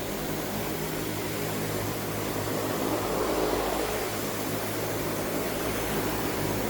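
Steady mechanical hum of a machine running, with a low drone under an even hiss and no breaks.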